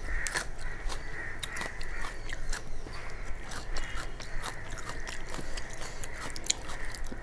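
Close-up wet chewing and mouth clicks of someone eating soft khichdi by hand, with fingers squishing and scraping through the khichdi on a metal plate; many small irregular clicks.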